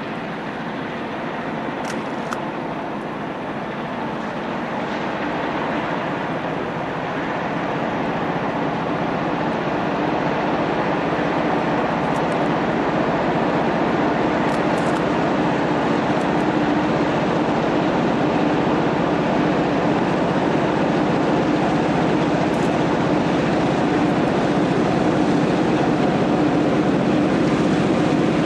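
EMD SD38 diesel-electric locomotive with a non-turbocharged 16-cylinder 645 engine, approaching and growing steadily louder. A steady low engine hum comes up about halfway through.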